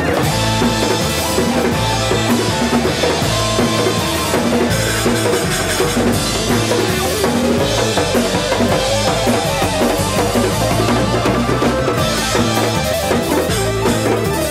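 A live rock band playing: a drum kit with bass drum and snare driving a steady beat under electric bass and electric guitar.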